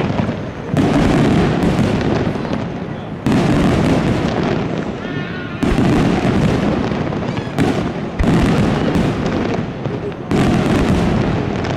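Aerial firework shells bursting in a rapid series of loud bangs, each sudden blast trailing off into a deep rumble before the next one hits.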